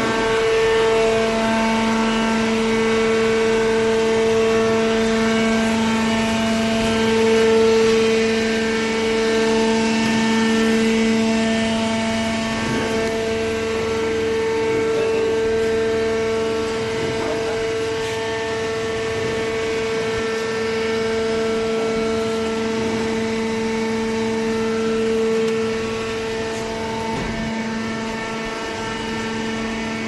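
Hydraulic cardboard baler's electric motor and hydraulic pump running: a steady whining hum that holds one pitch, a little quieter near the end.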